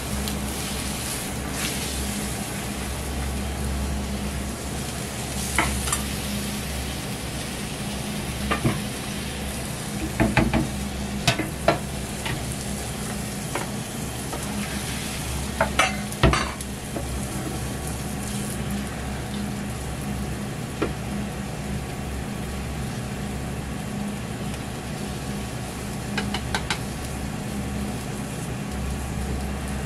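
Beaten egg sizzling in an oiled square tamagoyaki pan over a gas flame, with chopsticks and a metal ladle clicking and scraping against the pan and the bowl now and then: a cluster of knocks about ten to twelve seconds in and the loudest clatter about sixteen seconds in. A steady low hum runs underneath.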